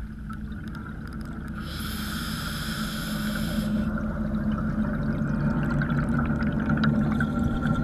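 Underwater sound of scuba diving: a steady low hum with bubbling water, and a hiss lasting about two seconds near the start.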